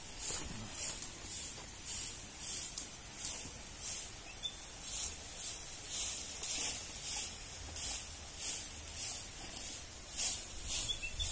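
Footsteps crunching on a dry, gravelly path at walking pace, about one and a half to two steps a second, over a faint steady low rumble.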